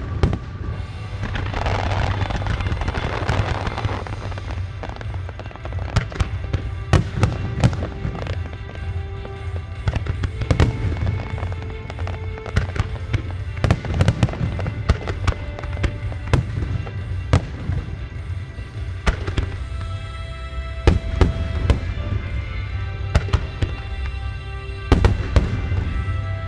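Music star mine fireworks display: aerial shells bursting one after another in dozens of sharp booms over a low rumble, timed to a song that plays throughout.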